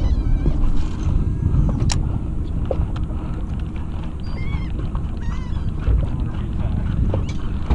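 Seabirds calling over the water: a few short, high, wavering cries near the start and around the middle, over a steady low rumble.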